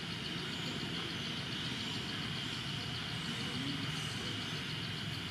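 Forest ambience: a steady high-pitched insect drone with a fast, even pulsing, over a low steady rumble.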